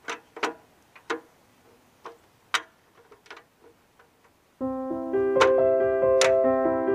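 A few sharp light clicks and taps as the chrome luggage rack on a Harley Dyna is handled and wiped with a rag. About four and a half seconds in, keyboard music with held notes starts suddenly and is the loudest sound.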